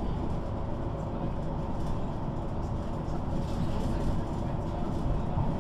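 MAN NG 313 articulated city bus with a six-cylinder diesel engine and ZF automatic gearbox, running steadily with engine, drivetrain and road noise, as heard aboard.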